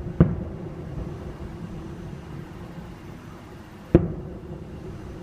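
Aerial fireworks going off: two sharp booms, one just after the start and another about four seconds in, each trailing off in a rumbling echo.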